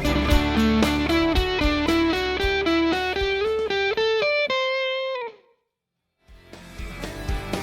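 Electric guitar driven through a Way Huge Red Llama overdrive pedal, playing a climbing run of notes over drums and bass and ending on a held note that cuts off about five seconds in. After about a second of silence, music fades back in.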